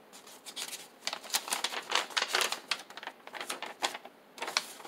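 A folded paper instruction sheet being unfolded and handled, rustling and crackling in quick irregular bursts from about a second in until just before the end.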